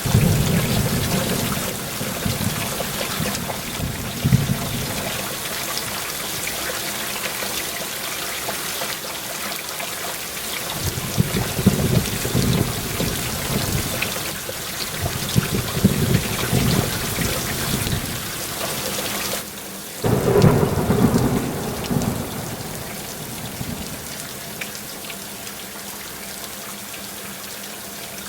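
Heavy rain falling steadily, with thunder rumbling in three long rolls; the loudest roll comes about two-thirds of the way through, right after a brief drop in the rain.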